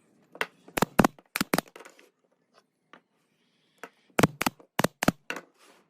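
Sharp knocks of a tool striking wood, in two irregular bursts of about five or six strikes each, with a few seconds' pause between them.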